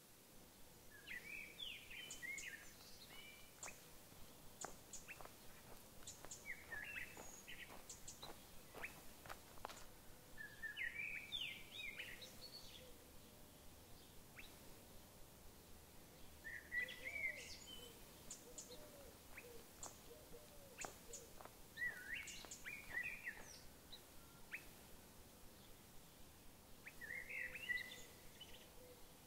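A songbird in forest sings six short warbled phrases, about one every five seconds. Scattered short ticks and chirps sound between the phrases, over a faint steady background hiss.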